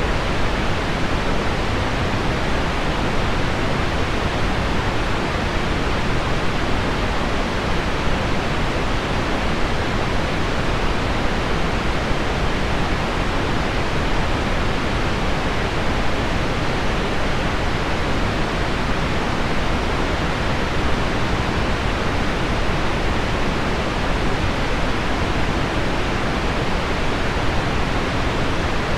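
Steady, even pink noise with heavy rain on window glass mixed in, forming one unbroken rushing sleep soundscape with no separate drops or changes standing out.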